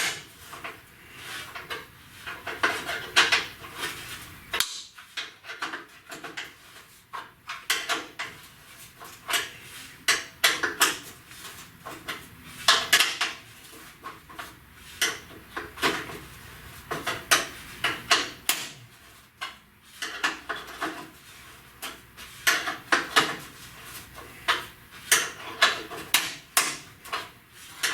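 Hand tools and loose metal parts clinking and knocking during the removal of the core support's remaining bolts: irregular sharp metallic clicks and clanks in clusters, with short quieter pauses between.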